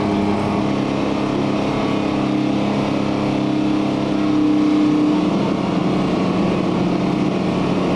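Tour bus engine running steadily, heard from inside the passenger cabin. Its note drops slightly about five seconds in.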